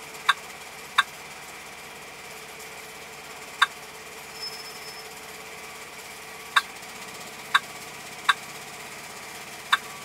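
Seven short key-press beeps from a truck GPS touchscreen as digits of a coordinate are tapped in, spaced unevenly, over the steady running of the truck's idling engine.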